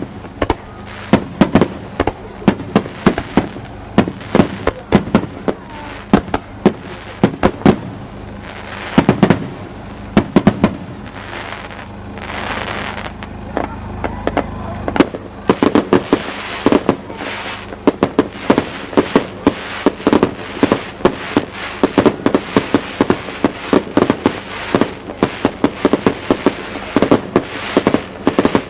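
Aerial fireworks bursting in rapid-fire volleys, a dense run of sharp bangs several a second, with a hissing, crackling swell about halfway through.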